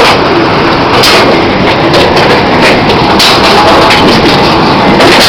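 Potato sorting line running loud: steady machinery noise from the conveyor belt with potatoes and rocks tumbling, and a few sharp knocks.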